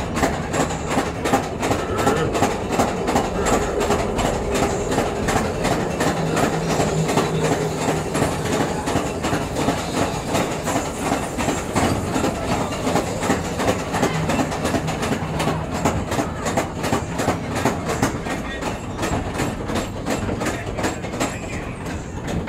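Calico Mine Train cars rolling on their track, the wheels clattering in a steady rapid run of clicks over the rail joints. A low steady hum comes and goes under the clatter.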